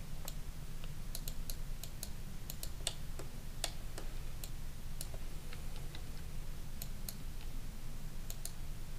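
Computer keyboard and mouse clicking at irregular intervals, several clicks in some seconds and fewer in others, over a steady low hum.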